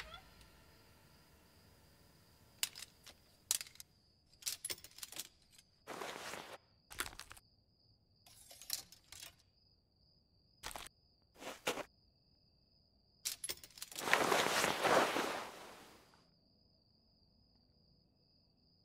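A faint, steady high cricket trill, with a scattered run of short clicks and rustles over it. About two-thirds of the way in comes a louder rushing noise lasting about two seconds, then the cricket trill alone.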